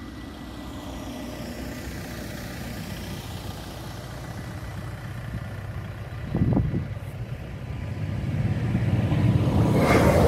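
A van passes on the road about six seconds in, a brief swell of tyre and engine noise. Then a passenger train approaches and runs into the level crossing, its rumble building steadily over the last few seconds until it is the loudest sound.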